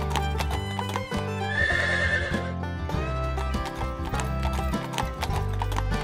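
Background music with a steady beat, and an animal call laid over it for about a second, starting about one and a half seconds in.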